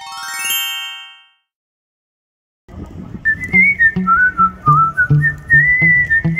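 A quick rising sparkle chime effect that rings out within about a second and a half. After a short silence, background music starts about two and a half seconds in: a whistled tune over a steady, bouncy bass beat.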